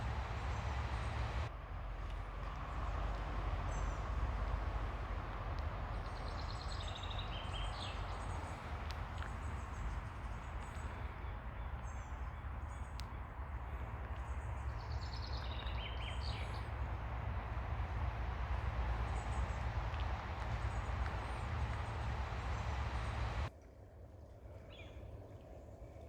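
Ocean waves washing onto a beach, a steady rush with a strong low rumble, with a bird chirping in short bursts twice. Near the end the rumble cuts out abruptly and the sound drops to a quieter, thinner wash.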